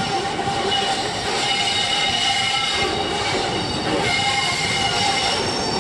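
InterCity 125 HST led by a Class 43 diesel power car, its engine running as it approaches slowly round a curve. Steady high-pitched tones of wheel squeal ride over the rumble.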